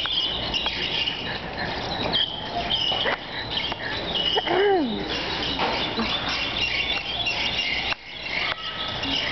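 Squeaky shopping cart being pushed along, giving high squeaks over and over as it rolls.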